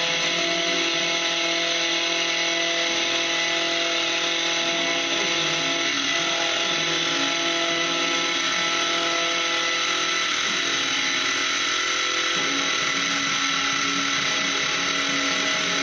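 Small bench milling machine running steadily, its motor and spindle drive giving an even whine made of several steady tones over a dense mechanical hiss.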